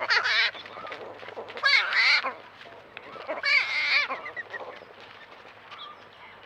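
Young javelina (collared peccary) calling: three loud calls that waver up and down in pitch in the first four seconds, then a few fainter calls near the end.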